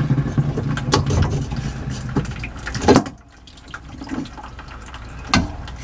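Water pouring out of a loosened whole-house filter housing into a plastic bucket as the pressure left in the line bleeds off. The flow drops off sharply about three seconds in, with a couple of light knocks.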